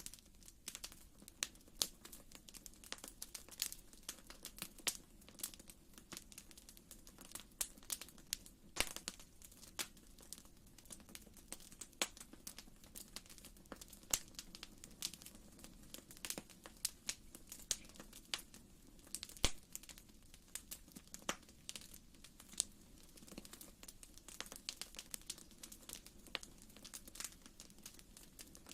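Wood fire burning in a fireplace, crackling with many irregular small pops and a few sharper snaps over a soft, steady low rush of flame.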